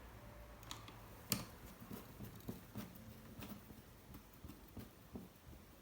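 Faint, scattered light clicks and taps as screws and small parts are handled on a laptop being reassembled, with a sharper click about a second in.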